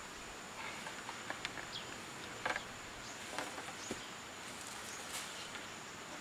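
A steady high insect drone, with scattered snaps and rustles of twigs and leaves as a person pushes through undergrowth with an armful of cut bamboo poles.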